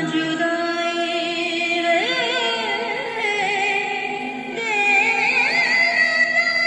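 A song with a singing voice on long, wavering held notes over accompaniment, played through a speaker driven by a 4440 amplifier board during its sound test.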